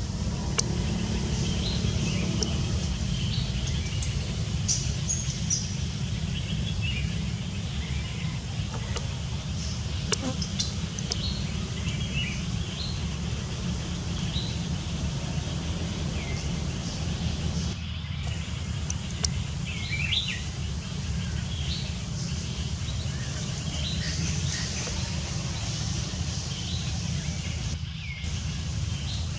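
Forest birds give short, scattered chirps and calls over a steady low rumble.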